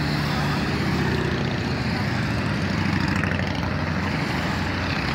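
Several motorcycles riding past close by one after another, their engines running together in a steady, loud drone.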